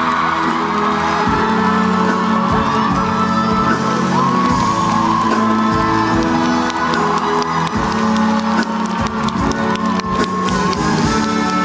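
Curtain-call music playing in a theatre, with the audience cheering and clapping. The clapping grows denser in the second half.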